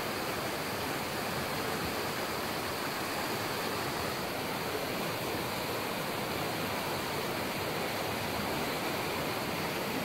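Fast-flowing river rushing steadily over its bed.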